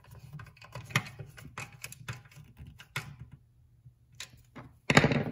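Nut driver snugging small nuts onto the studs of a metal instrument cluster housing: a run of light clicks and ticks, pausing about three seconds in, then a few more and a brief louder sound near the end.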